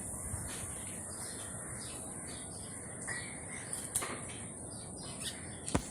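Steady outdoor background noise with a faint bird call about three seconds in and a sharp click near the end.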